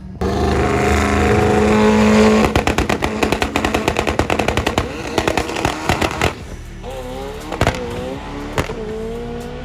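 Performance car engine held steady at high revs, then a rapid crackle of sharp exhaust pops for several seconds, then revs rising and falling.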